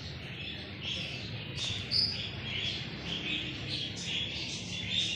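Small birds chirping: short high calls repeated a few times a second, one louder call about two seconds in, over a faint low steady hum.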